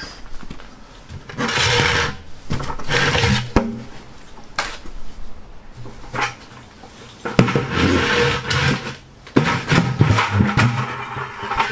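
Scraping, rustling and knocks of a plastic bucket being set under a dirt bike and the bike being propped up on it, in two spells with a sharp knock between them. Background music plays underneath.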